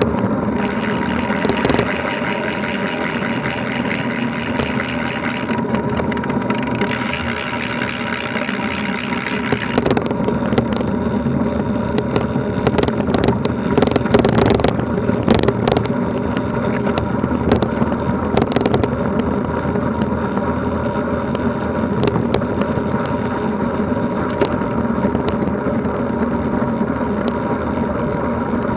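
Ride noise picked up by a camera mounted on a road bike at around 20 mph: steady tyre rumble and wind. In the middle stretch come sharp rattles and knocks as the bike runs over a rough, rutted dirt track.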